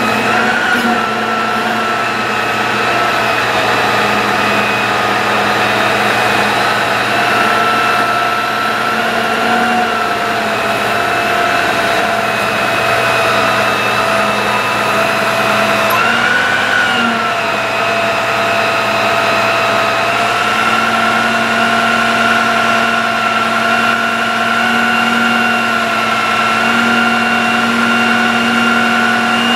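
Bucket truck's engine running with the PTO engaged, driving the hydraulic pump in a steady whine as the aerial boom is lowered. The whine rises and falls briefly about halfway through.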